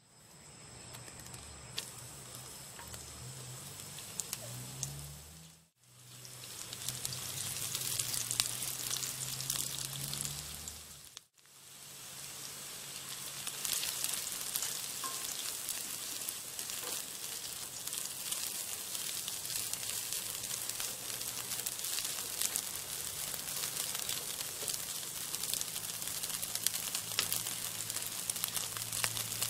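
Sliced shallots and then dried anchovies frying in hot oil in a nonstick wok: a steady sizzle dotted with small crackles. It is quieter for the first few seconds, louder after that, and cuts out briefly twice.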